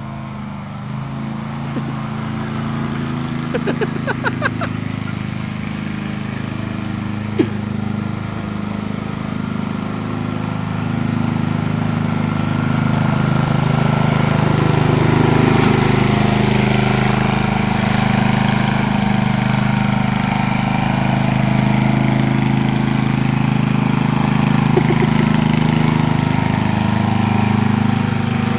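Rear-engine riding lawn mower's engine running steadily as the mower drives across the lawn, getting louder about halfway through. A quick rattle of clicks comes about four seconds in, and a single sharp knock a few seconds later.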